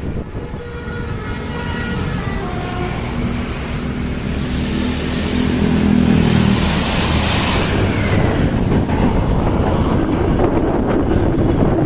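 Bus with a loud open exhaust accelerating past; the engine note builds and grows louder to a peak about six to seven seconds in, then stays loud as road noise.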